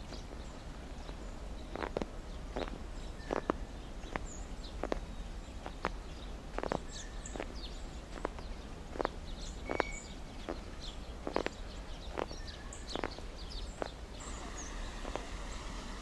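Footsteps in snow at a steady walking pace, about one and a half steps a second, with faint bird chirps over a low steady outdoor rumble.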